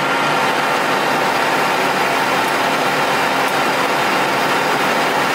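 Colchester lathe running under power while a carbide tool takes a turning cut along a steel bar: a steady machine hum with the noise of the cut, unchanging throughout.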